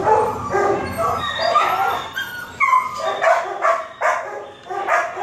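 Shelter dogs barking, a dense run of short barks a few times a second with no let-up.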